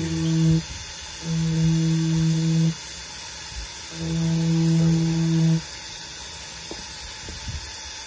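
Rotary carving tool with a small bit running in short bursts, a steady hum that stops and starts three times, each about a second and a half, as it cuts horseshoe-shaped feather marks into a basswood bird carving. The last couple of seconds are quieter, with a few faint ticks.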